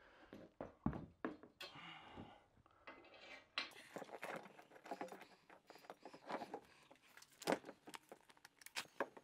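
Handling noise from a metal barn door track being held up and shifted against a wall: scattered light clicks, taps and rustles, with a sharper knock about two-thirds of the way through.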